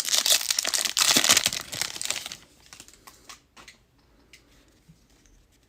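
A foil trading-card pack wrapper being torn and crinkled for about two and a half seconds, followed by a few faint clicks as the cards are handled.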